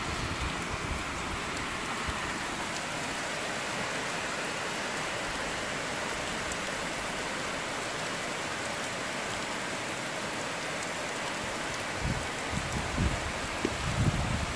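Heavy rain falling steadily, a continuous even hiss of rain on roofs and ground, with a few low thumps near the end.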